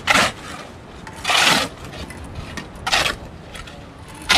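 A trowel scraping over cement in four short rasping strokes, about one every second and a half, while the surface is finished off.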